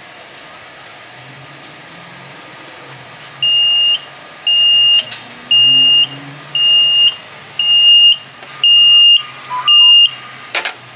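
Caltrain ticket vending machine beeping: seven short, high beeps about once a second, prompting the rider to collect the ticket and change from the dispense tray. A sharp click follows near the end.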